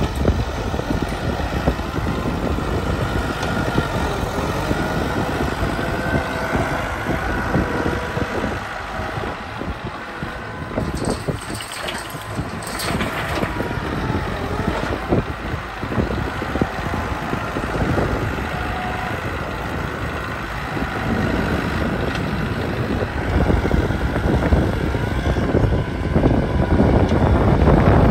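Kubota M9540 tractor's four-cylinder diesel engine working a front loader, its pitch rising and falling as the bucket digs into a sugar-beet pile and lifts. About halfway through, a clattering rush as the beets are tipped from the bucket into a truck bed.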